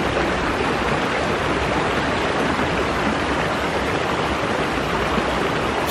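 Small mountain stream running fast over a stony bed: a steady rush of water.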